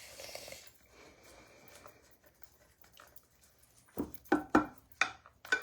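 Cheese being grated with a hand cheese grater: a soft rasp at the start, then a quick run of five or so sharp taps and clicks near the end.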